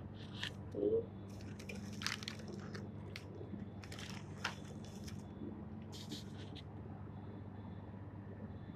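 Plastic wrapping of a flower bouquet rustling and crinkling in a few short crackles as it is handled, over a steady low hum.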